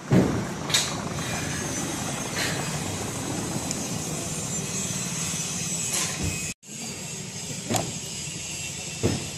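Toy tractor pulling a loaded trolley over wet ground, a steady low running hum with a few sharp knocks and clatters. The sound drops out briefly about two-thirds of the way through.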